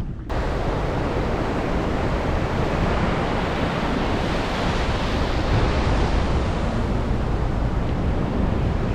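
Ocean surf washing onto a beach, a steady rush of waves with wind buffeting the microphone; it starts abruptly just after the beginning.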